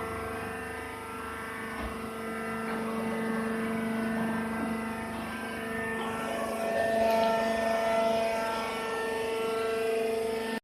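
Wood chip baling machine running: a steady mechanical hum with a few fainter higher tones that come and go.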